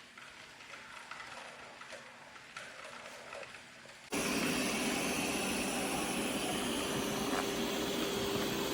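Faint mechanical clicking, then about four seconds in a Roborock S8 Max Ultra robot vacuum system's suction motor starts abruptly and runs steadily, a loud rushing noise with a steady whine.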